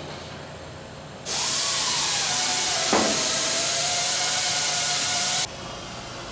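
Compressed-air tool cleaning parts removed from an aircraft wing. It switches on with a loud hiss and a faint whistle that slides down in pitch, with one click partway through. It runs for about four seconds, then cuts off suddenly.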